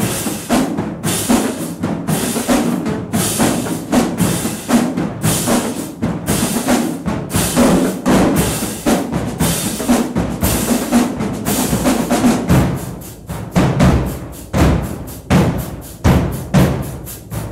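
Marching band drumline playing a cadence: snare drums, tenor drums, bass drums and cymbals in a fast, driving rhythm. About two-thirds of the way in, heavy bass drum hits come to the front.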